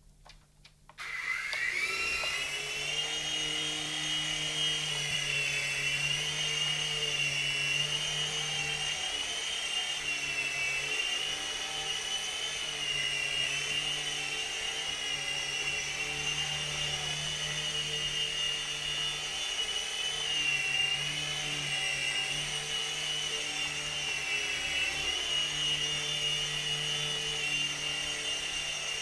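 DFD Fire Wolf F103 micro RC helicopter's electric motors and rotors starting up about a second in, rising to a high whine, then running steadily with small changes in pitch as the throttle varies in flight.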